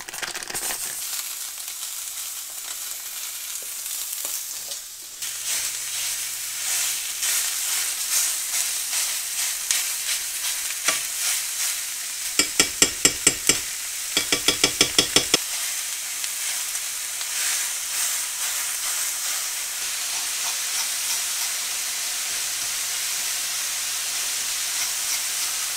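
Ground sausage sizzling as it fries in a hot, oiled cast iron skillet, with a utensil stirring and breaking up the meat. About halfway through come two quick runs of sharp taps from the utensil striking the pan, the loudest sounds here.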